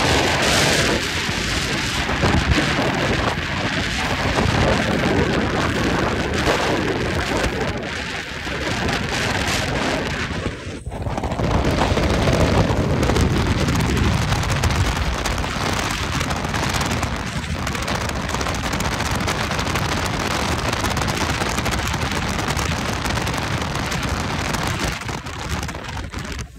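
Wind buffeting the phone's microphone and water spray rushing and slapping against the hull of a bass boat running at speed through rough, choppy water, a loud, dense rush with a brief break about eleven seconds in.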